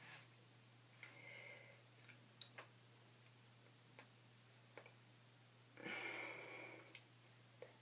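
Near silence: room tone with a steady low hum, a few faint clicks and two short soft rustles, one about a second in and a slightly louder one around six seconds.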